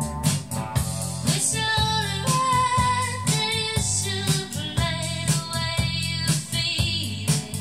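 A song played back from cassette on a Yamaha KX-R430 tape deck: singing over guitar and a steady drum beat.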